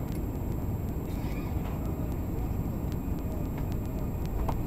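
Steady low rumble of airliner cabin noise, engines and rushing air heard from a window seat as the plane descends toward landing.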